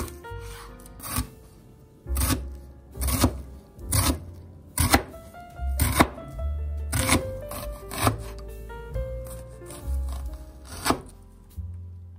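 Background music, with a knife slicing through an onion and striking a plastic cutting board in sharp cuts about once a second.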